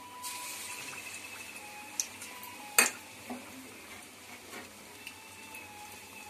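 Sweet jaggery appam batter frying in hot oil in a kadai, sizzling steadily, a little louder just after a ladleful goes in. A single sharp click a little under three seconds in, with a few fainter clicks around it.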